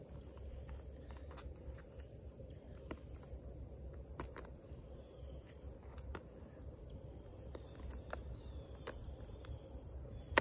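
A steady, high-pitched chorus of crickets runs throughout. Over it come faint, scattered clicks, roughly one a second, from a knife blade cutting hard cheese into cubes on a board.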